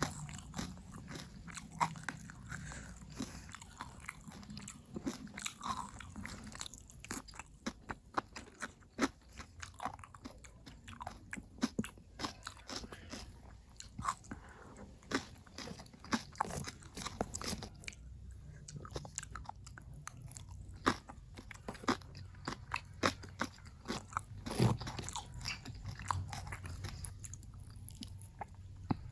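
Close-miked eating: many sharp bites and crunches mixed with wet chewing, coming irregularly several times a second.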